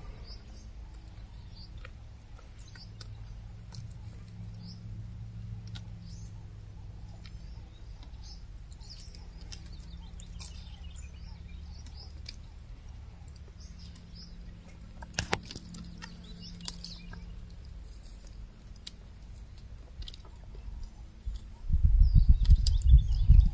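Small birds chirping, with scattered sharp clicks and crackles as a giraffe strips and chews thorny acacia twigs, over a low steady hum. A loud low rumble starts near the end.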